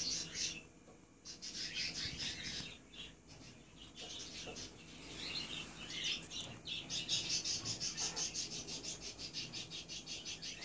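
Alexandrine parakeets mating, making a rapid, rhythmic high-pitched chatter that comes in bursts. The longest unbroken run is in the last few seconds.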